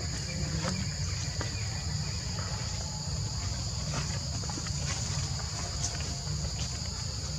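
Steady, unbroken high-pitched drone of an insect chorus, over a low rumble and a few faint clicks.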